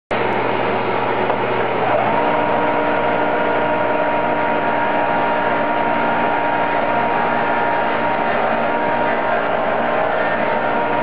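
Benchtop disc sander running steadily with a hum while a wooden dowel is pressed against the spinning disc and sanded round to form a tenon. About two seconds in, a higher whine rises and then holds steady alongside it.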